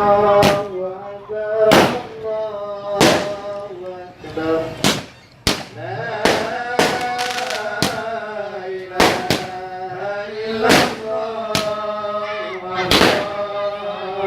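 Fireworks going off, about a dozen sharp bangs at irregular intervals, over music with long sung notes.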